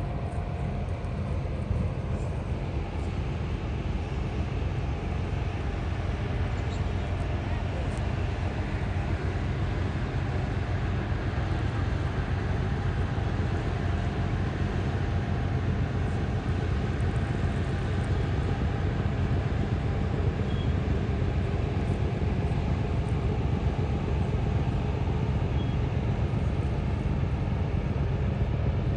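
Passenger riverboat's engines running with a steady low rumble as the boat passes close by.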